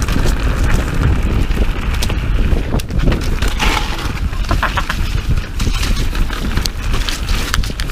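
Mountain bike riding fast down a dirt forest singletrack: steady low rumble of wind on the microphone and tyres on the trail, with frequent sharp clicks and rattles from the bike over bumps and roots.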